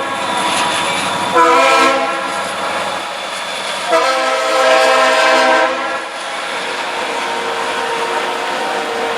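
Passing train sounding its horn, a short blast and then a longer one, over the steady noise of the train rolling by, which carries on after the horn stops. Loud.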